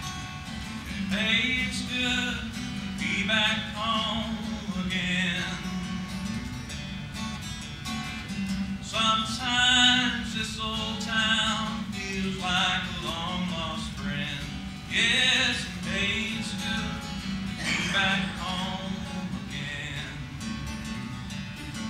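A man singing while strumming an acoustic guitar, his voice coming in phrases over the steady guitar.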